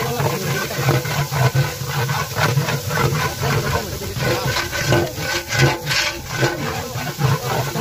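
A long metal ladle scraping and stirring frying onions and spices in a large aluminium cooking pot, with irregular scrapes and knocks, busiest around five to six seconds in, over a steady low drone.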